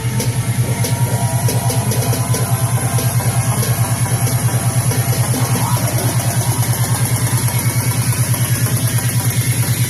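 Pop song with a heavy, fast-pulsing bass line (about eight pulses a second), with guitar and drums, played back through an Infinity (JBL) Hardrock 410 home theatre system with subwoofer during a bass sound test.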